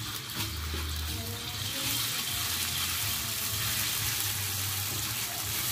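Ground chili spice paste sizzling in hot oil in a wok as it is stirred, the sizzle growing louder about two seconds in.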